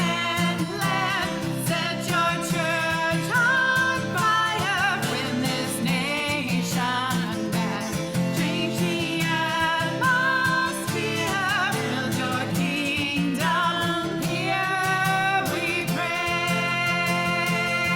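A song with a singer and guitar accompaniment, the voice sung with vibrato.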